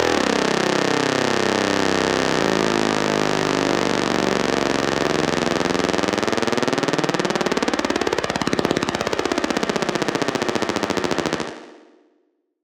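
Harsh, rapid buzzing rattle with a sweeping, wavering pitch, a spooky sound effect; it fades out about eleven seconds in.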